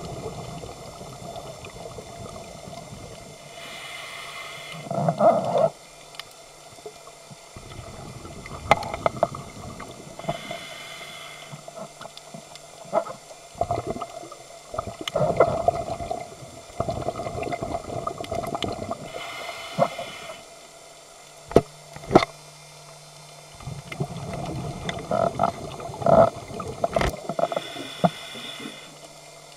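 A scuba diver breathing through a regulator underwater: a short hiss of inhalation about every eight seconds, each followed by a long bubbling, gurgling exhalation. A few sharp clicks stand out near the two-thirds mark.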